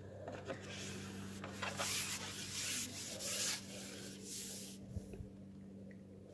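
A carbon fishing pole sliding and rubbing through the angler's hands as he draws it back: a series of rasping rubs, strongest in the middle, over a faint steady low hum.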